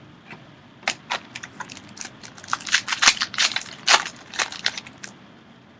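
Plastic crinkling and crackling in hands: a quick, irregular run of sharp crackles, busiest in the middle, as trading-card packaging is handled.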